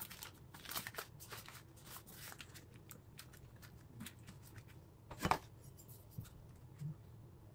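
Baking paper crinkling and rustling as a rolled sheet of puff pastry is unrolled and pressed flat by hand, with many small crackles, thickest in the first few seconds. One sharp knock about five seconds in, the loudest sound.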